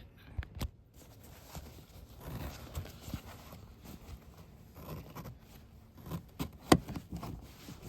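Handling noise of seat-belt hardware and a screwdriver: scattered clicks, light scrapes and rustling as the hook is pried off and the belt worked out of its bracket, with one sharp click near the end.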